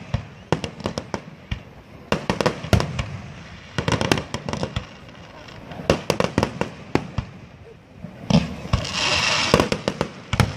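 Fireworks display: aerial shells bursting in rapid clusters of sharp bangs, with a dense second-long spell of crackling a little over eight seconds in.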